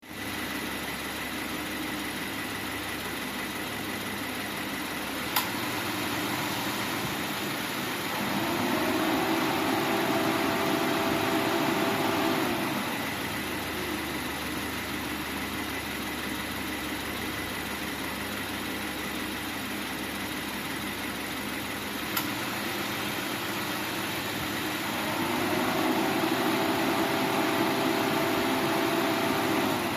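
2013 Subaru Forester 2.0T's turbocharged flat-four engine idling steadily with the air conditioning running. Two sharp clicks, and twice a louder steady hum comes in for about four seconds and then drops away. No compressor whine is heard: the compressor runs quietly after its noise-reducing oil treatment.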